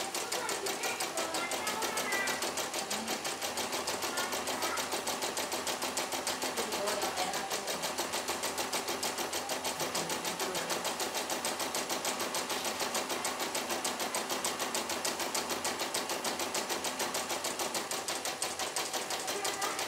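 CNY E900 portable embroidery machine running, its needle stitching out a design in the hoop with a rapid, even clatter of needle strokes.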